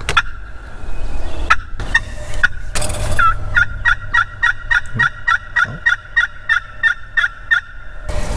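Turkey yelps: a few single notes, then a fast, even run of about fifteen yelps at about four a second that stops shortly before the end.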